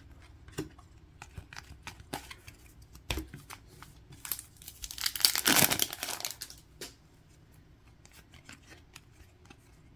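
Upper Deck hockey card pack wrapper torn open, a crinkling rip lasting about two seconds midway through, with soft clicks of cards being handled before it.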